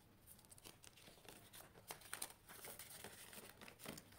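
Faint rustling and crinkling of paper banknotes and a clear plastic zip pouch in a ring binder being handled, with a few short crackles.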